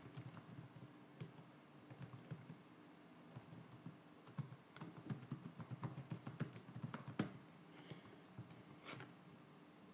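Faint typing on a computer keyboard: irregular runs of keystrokes, busiest in the middle, with a last few keys struck near the end.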